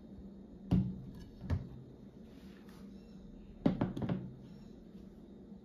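Tableware knocking on a marble tabletop: two separate knocks in the first couple of seconds, then a quick clatter of a metal fork against a small plastic container of sauce a little before the fourth second.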